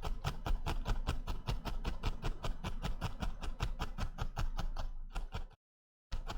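A fast, even series of short knocks or taps, about eight or nine a second, that stops abruptly about five and a half seconds in, with a brief burst again near the end.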